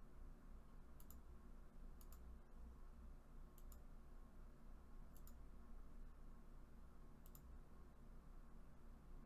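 Near silence: a steady low hum with five faint, sharp clicks, each a quick double tick, spaced one to two seconds apart.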